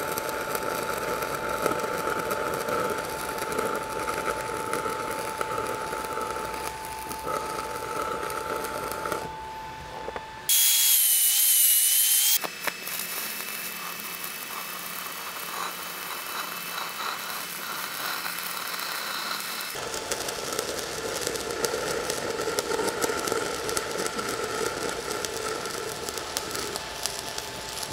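Steady crackling of a 6010 stick-welding arc running an open root pass up a small steel pipe, a sound the welder took to mean the root went in well. About ten seconds in, a much louder two-second stretch with a wavering high tone cuts in abruptly, and the arc sound changes character after it.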